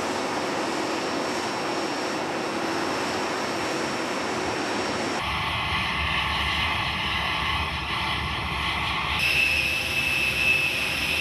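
Steady jet aircraft noise: an even rush with a high whine running through it. Its character changes abruptly twice, about five and nine seconds in, and a sharper whine sets in after the second change.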